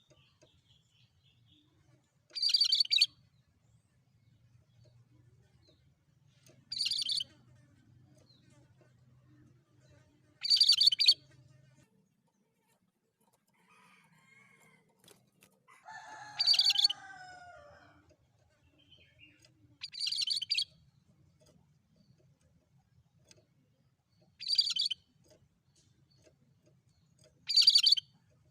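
Cucak kerinci calling: seven short, harsh, high-pitched bursts, one every three to four seconds, with a lower falling two-note whistle about halfway through.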